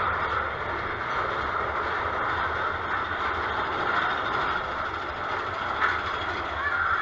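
Big Thunder Mountain Railroad's mine-train roller coaster running along its track, heard from a seat on the train as a steady rushing noise, with a single sharp click about six seconds in.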